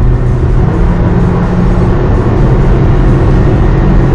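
Car driving, a steady low rumble of engine and road noise, with music playing along.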